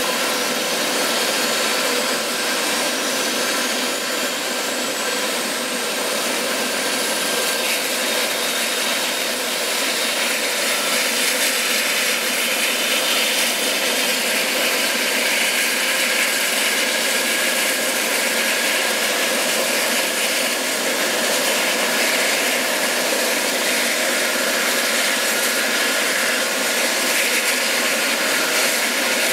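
Eurocopter EC135 air-ambulance helicopter running on the ground with its rotor turning: a steady turbine roar with a high whine that rises in pitch over the first dozen seconds or so, as the turbines spool up.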